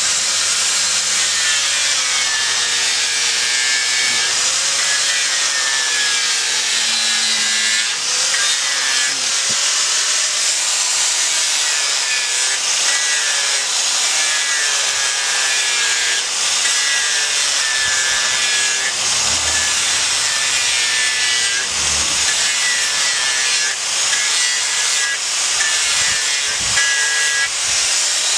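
Electric angle grinder with an abrasive sanding disc running at speed against a monkeypod wood carving: a loud, steady hiss of the disc on the wood, with the motor's whine wavering up and down as the disc is pressed in and eased off.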